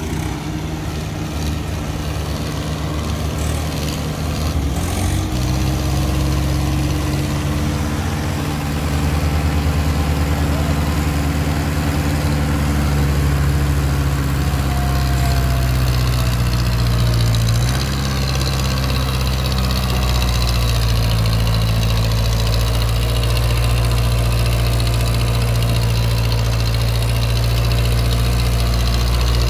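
Tractor's diesel engine working hard, towing a loaded sand trolley up a steep slope. Its note steps up about five seconds in and again about eighteen seconds in.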